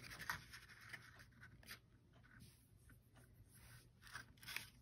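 Faint rustling and scraping of cardstock being folded and pressed by hand, in short scattered strokes that are a little louder near the end.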